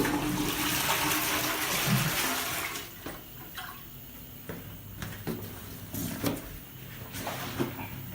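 Toilet flushing: a loud rush of water for about three seconds, then a quieter steady running of water with scattered clicks and knocks.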